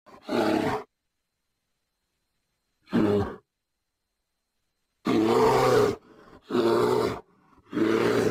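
Bear growling: five separate deep, rough calls with dead silence between them. The longest, about a second, comes just past halfway.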